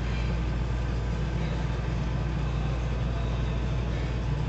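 Treadmill running: a steady low rumble of the motor and belt, with no break or change.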